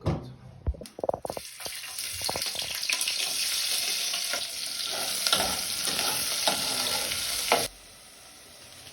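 Food sizzling in hot oil in a pan, after a few clattering knocks at the start. The sizzle cuts off suddenly near the end.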